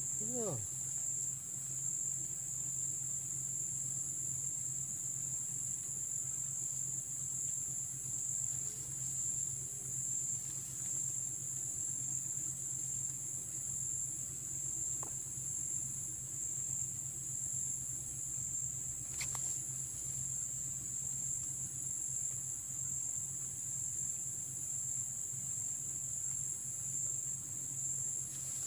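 Steady, high-pitched chorus of insects chirring in the grass, unbroken, with a faint low hum underneath.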